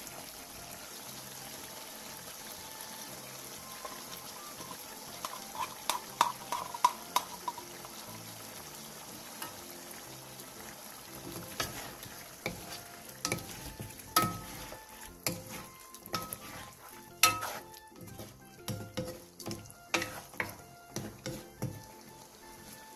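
Duck braise sizzling as its sauce reduces in a frying pan, with wooden spatulas stirring and knocking against the pan. The clacks of the spatulas start about a fifth of the way in and come thick and fast through the second half.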